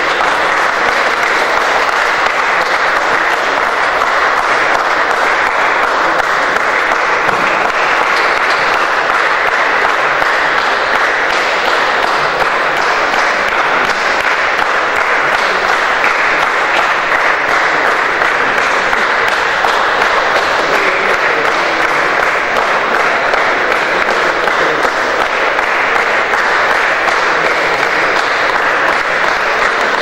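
Crowd applauding: steady, unbroken clapping from many hands that holds the same level throughout.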